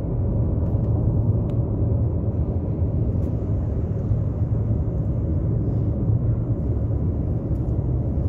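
Steady low rumble of a car driving at highway speed, heard from inside the moving car: tyre, road and engine noise.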